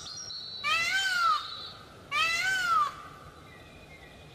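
Male Indian peafowl (peacock) calling: two wailing calls about a second and a half apart, each rising then falling in pitch and lasting under a second, with the tail of a previous call at the very start.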